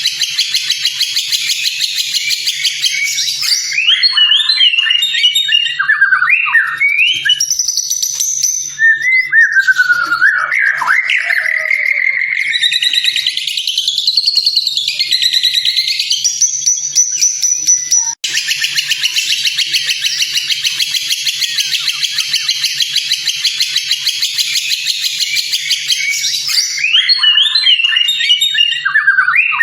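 White-rumped shama (murai batu) singing a training song: long runs of fast, dense chattering alternate with varied loud whistled phrases that rise and fall in pitch.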